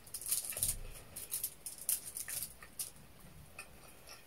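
Close-up eating sounds: irregular wet clicks of chewing and lip smacking, with crinkles from fingers picking food off a foil-lined platter.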